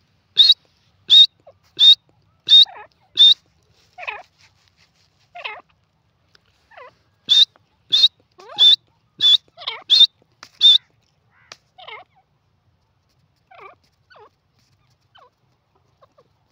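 Grey francolin calling: two runs of loud, sharp, high notes, about three every two seconds, one at the start and one around the middle, with softer, lower notes between and after.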